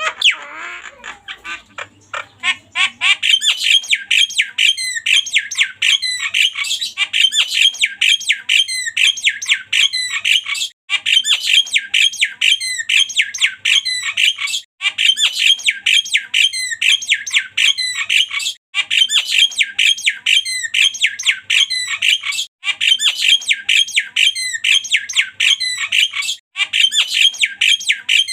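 Javan myna (jalak kebo) giving loud, harsh, rapid-fire calls, several notes a second, in repeated phrases of about four seconds with brief breaks between them.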